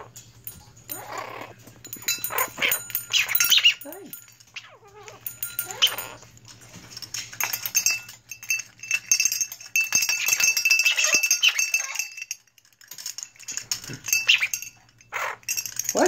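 Blue-crowned conure yelling, a run of loud calls with short pauses and a break about three-quarters of the way through. A metal bell toy rings as the bird knocks it, most clearly in the middle of the stretch.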